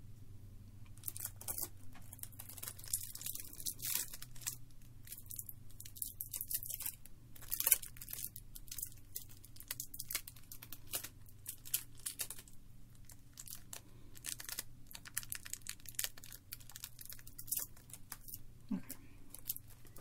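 Sticky adhesive tape being peeled and handled: a run of crackly tearing and crinkling with many small clicks, and one sharper snap about eight seconds in.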